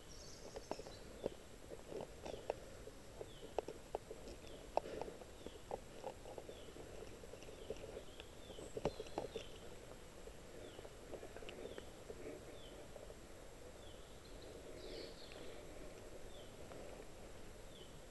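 Quiet outdoor ambience with a bird repeating a short, high, falling call about once a second. Light clicks and knocks are scattered through the first half.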